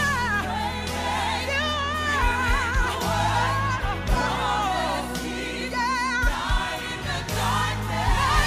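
Gospel worship song with a choir and lead vocals singing over keyboard and bass, played as background music.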